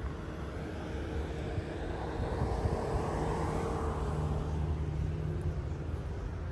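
Steady low rumble of road vehicles, with a rushing noise that swells about two seconds in and fades by about five seconds.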